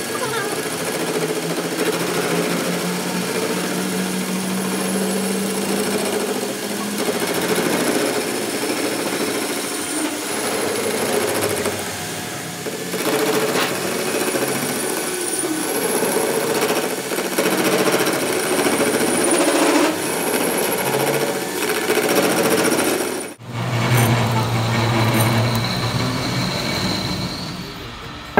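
Metal lathe running, its cutting tool scraping the face of a spinning metal part for a truck axle repair. About 23 seconds in, the sound changes abruptly to a steadier, lower hum.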